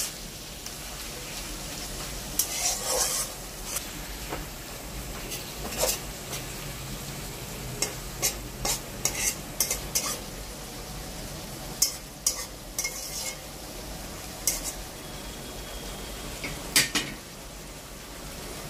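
Mixed leafy greens frying in oil in a kadai with a steady sizzle, while a spatula scrapes and taps against the pan at irregular moments as the greens are stirred. The greens are being fried down until dry.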